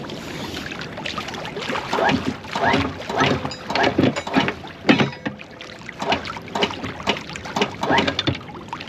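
A boat's anchor and chain clanking irregularly at the bow as the anchor is let down slowly by hand, ahead of lowering it the rest of the way with the windlass remote. The clanks start about two seconds in and carry on until near the end.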